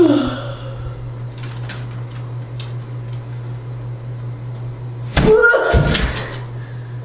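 Computer keyboard being typed on in scattered faint key clicks, then a loud burst of knocks and clatter about five seconds in, lasting about a second.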